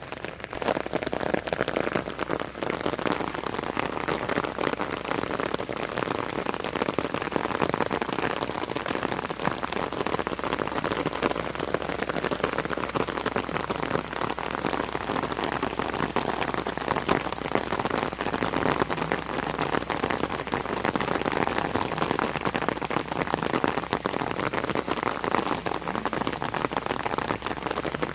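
Steady rain falling, a dense patter of individual drops.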